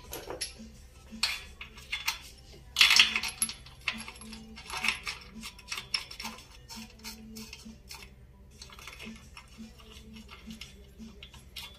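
Metal clinks and clatter of a steel bushing extractor being handled and set in place on a motorcycle swingarm's pivot bushing, held in a steel vise. The loudest clatter comes about three seconds in, and lighter clicks follow as the puller is fitted and its nut turned by hand.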